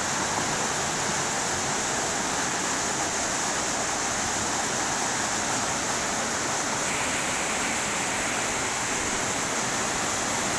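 Small waterfall cascading over rocks in a stream: a steady, unbroken rush of water.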